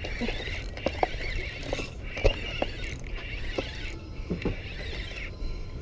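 Penn Slammer III spinning reel being cranked to bring in a hooked striped bass: a steady whir with scattered clicks that stops shortly before the end. Wind buffets the microphone underneath.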